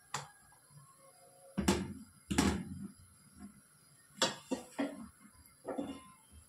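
Kitchen handling noises: a few knocks and thuds on the counter, two heavier thuds in the first half, then a quick run of lighter knocks about four seconds in and one more near the end.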